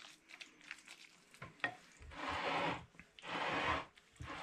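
Cooked rice being scooped from a pan with a serving spoon and tipped into a tagine: a few light taps, then two scraping, rustling scoops of under a second each, about two and three seconds in.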